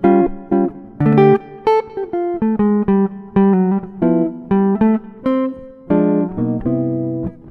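Background music: acoustic guitar playing plucked notes and chords at a relaxed pace.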